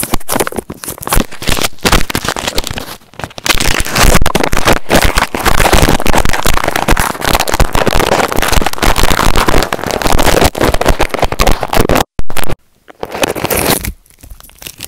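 Foil-and-plastic packaging wrapper crinkled and scratched right up against a small wired microphone: a dense run of loud crackles, broken by a short gap about twelve seconds in.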